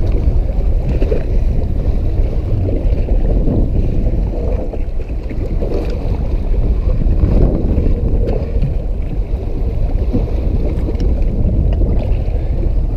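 Steady rumble and wash of wind and sea water around a fishing boat's hull, with wind buffeting the microphone.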